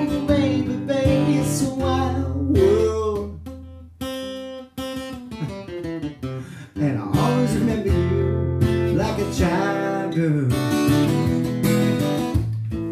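A man singing while strumming an acoustic guitar, with a brief dip in the music about four to five seconds in.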